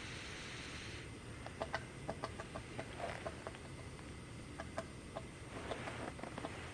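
A woodpecker pecking at wood: single sharp taps at irregular intervals, with a hissing scrape in the first second and again near the end.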